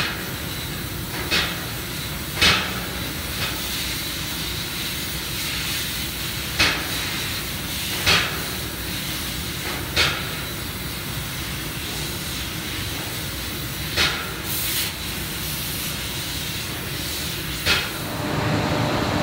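2000 W fiber laser cutting a spiral pattern through stainless steel sheet: a steady hiss of the assist-gas jet, broken by about eight short sharp pops at uneven intervals. Near the end the hiss gives way to a steadier low hum.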